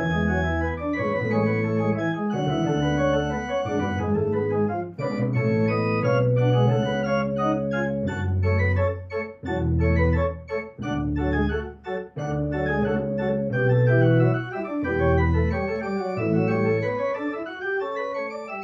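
Three-manual organ played with hands and feet: a Baroque-style contrapuntal setting of a pop song, a pedal bass line under several moving upper voices. Midway the playing turns to short, detached notes, and near the end a line climbs upward.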